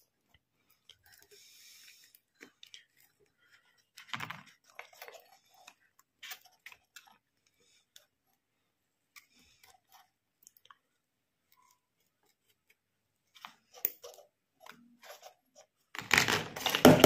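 Soldering iron tip and a flat scraper rubbing on an LED bulb driver circuit board as the IC's solder pads are cleaned, giving faint scattered clicks and scratches. Louder handling clatter near the end.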